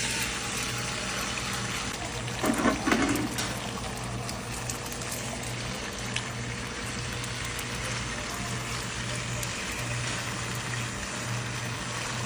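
Eggs frying in hot oil in a pan: a steady sizzle, with a louder spitting burst about two and a half seconds in. A steady low hum runs underneath.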